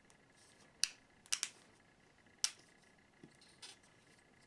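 A handful of short, sharp clicks at irregular intervals, two of them close together about a second and a half in: a wooden brush handle knocking and scraping against the plastic neck of a masking fluid bottle.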